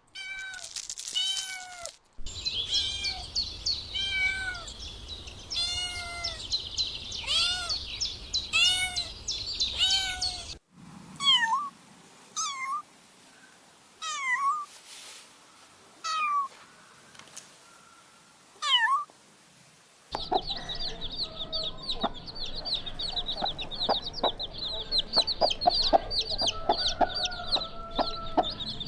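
Kittens meowing over and over, short high-pitched meows, with sudden cuts between clips.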